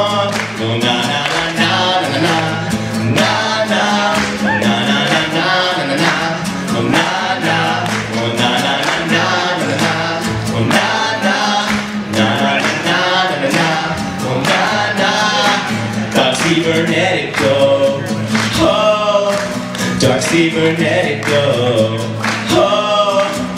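A man singing with his own strummed acoustic guitar, the strums keeping a steady rhythm under the voice.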